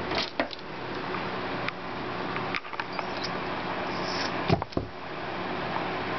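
Spider ball python catching a live African soft-furred rat pup in a plastic tub lined with newspaper: scattered knocks and rustles over a steady hiss, the two loudest knocks a little past halfway, with brief faint high squeaks just before them.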